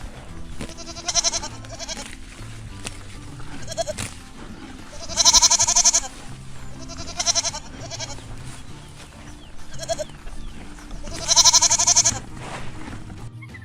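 Repeated bleating from sheep or goats: about eight calls with a quavering pitch, the two loudest and longest near the middle and near the end, over steady background music.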